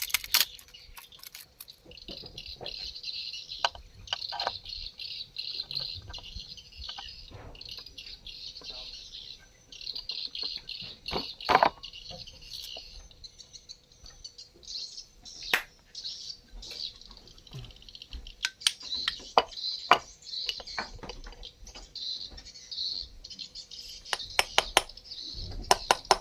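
Scattered sharp metallic clicks and taps of hand tools and bolts being handled while fitting bolts to a chainsaw's magneto flywheel, over a steady high, pulsing chirping in the background.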